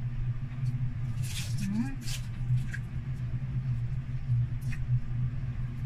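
Close-up crunching of crispy chicharon bulaklak (deep-fried pork intestine) being chewed: a handful of short crisp crunches, over a steady low hum, with a brief rising 'mm' about two seconds in.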